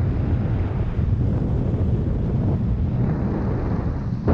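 Wind buffeting the microphone over the steady rush of a Gheenoe LowTide 25 microskiff running at speed under outboard power, with a sharp knock right at the end.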